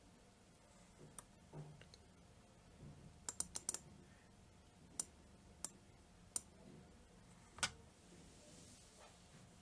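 A scattered run of light, sharp clicks: one about a second in, a quick cluster of four about three and a half seconds in, then single clicks about every second until near the end.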